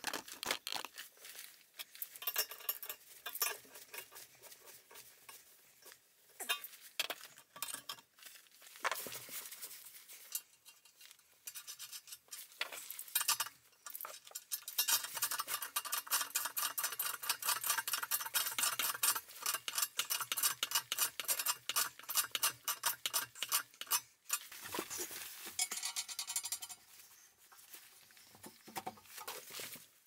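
Metal clinking, tapping and clicking as galvanized pipe fittings and tools are handled at a cast iron radiator, in dense runs of sharp clicks that are busiest through the middle.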